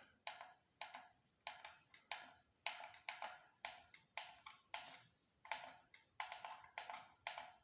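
A run of sharp ticks or clicks, about two to three a second, slightly uneven in spacing.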